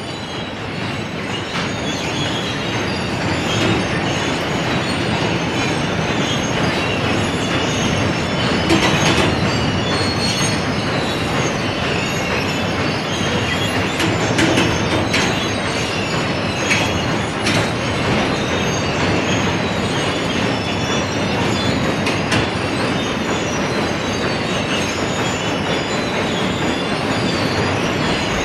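A moving train: a steady rumble of wheels on track with faint high wheel squeals and scattered clicks, building up over the first few seconds and then holding steady.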